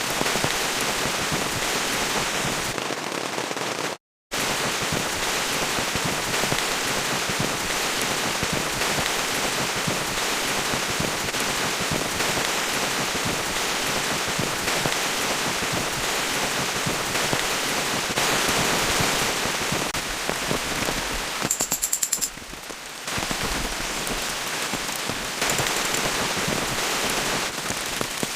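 Steady heavy rain, a dense crackle of drops striking a surface, broken by a brief cut to silence about four seconds in.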